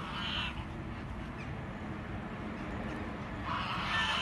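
Domestic geese honking: a short call right at the start and a longer burst of honks near the end, over a steady low rumble.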